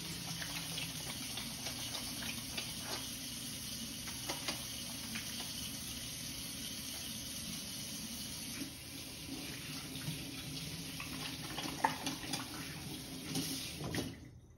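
Water tap running steadily into a sink as hands are washed under it, with small splashes and clicks; the water shuts off near the end.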